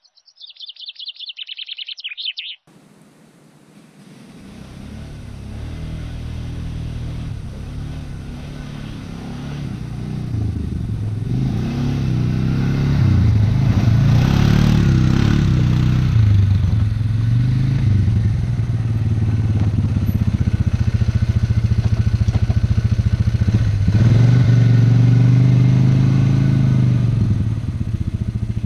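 ATV (quad bike) engine running, growing louder from about four seconds in, its revs rising and falling as it is driven. A brief high-pitched rattling sound comes first.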